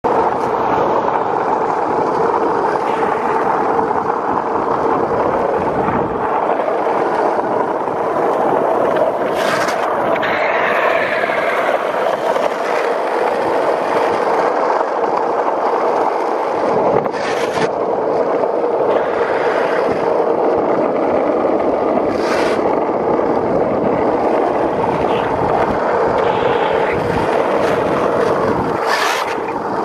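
Skateboard wheels rolling over asphalt at speed, a steady grinding rumble, with a few brief hissing scrapes.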